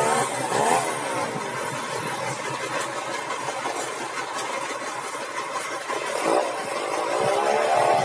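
Band sawmill running: steady machine noise with a motor whine that sweeps down and back up in pitch just after the start, and again near the end.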